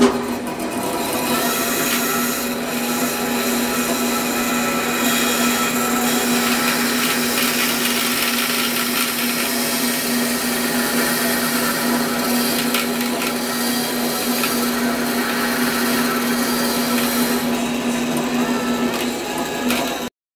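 Bandsaw running: a steady hum over a bright hiss, holding level throughout.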